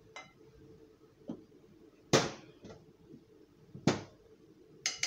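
Kitchen knocks and clinks as glass spice jars and utensils are set down and picked up on the worktop: several separate hits, two loud knocks about two and four seconds in, and two ringing glass clinks near the end.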